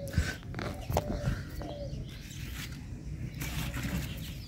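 Birds chirping, with two sharp knocks in the first second and a spell of leafy rustling near the end as a hand moves through bean vines.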